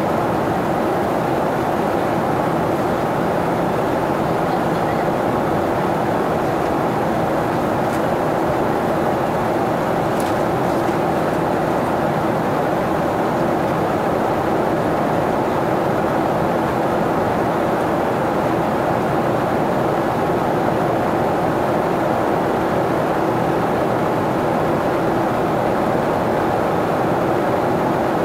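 Steady, even cabin noise inside a jet airliner in flight: the drone of the engines and the rush of air past the fuselage.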